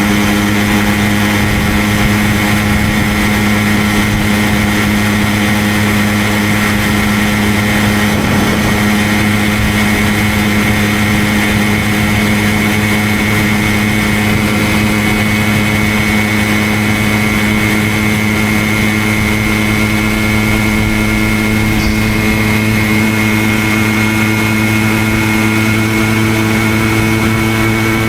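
Simson moped's 50 cc single-cylinder two-stroke engine running under way at a steady, nearly unchanging pitch, as when cruising at constant speed.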